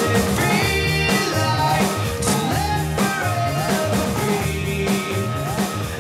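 Background music with a steady drum beat, a bass line and gliding lead lines.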